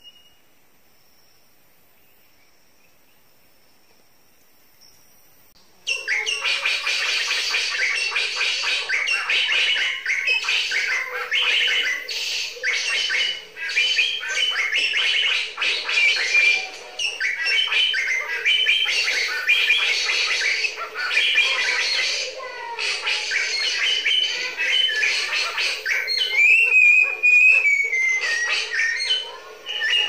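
Bird-lure recording played from a sound machine: a dense chorus of small birds chattering and squawking, which switches on abruptly about six seconds in and runs loud and unbroken. A curving whistled call stands out near the end.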